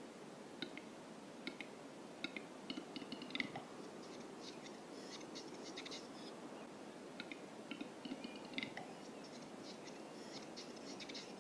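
Male western capercaillie giving its display song twice. Each song is a run of dry clicks that come faster and faster, then a louder pop, then a couple of seconds of high, scraping whetting.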